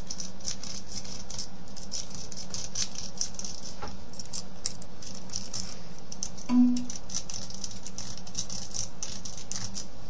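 A lock-picking rake scraping back and forth in a 5-pin pin-tumbler cylinder lock. The pins click and rattle in quick, irregular strokes. A brief low hum comes about six and a half seconds in.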